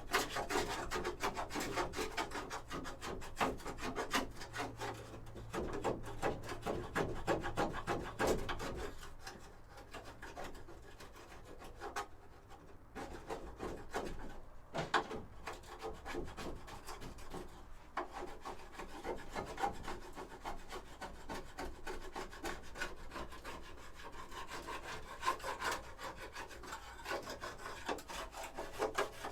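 Quick, repeated hand scraping and rubbing strokes, a dry rasping sound, as a tool works stripper-softened grime off ATV plastic bodywork. It is louder for the first several seconds, then eases off.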